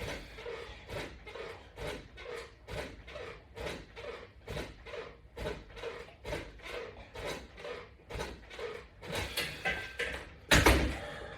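Rhythmic sounds of abdominal exercise reps: a short sound about twice a second, in a steady rhythm. A single loud sudden knock near the end.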